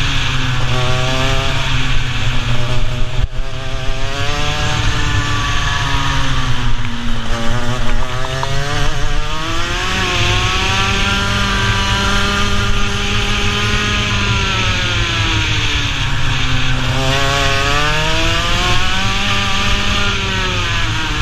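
Racing kart's engine heard from on board, its pitch dropping off into each corner and climbing again on the straights several times, with a long high run in the middle. Wind rushes steadily over the microphone.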